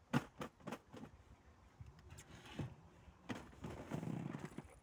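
Clicks, knocks and rustling from fishing tackle being handled in an inflatable boat, with a louder patch of rustling near the end.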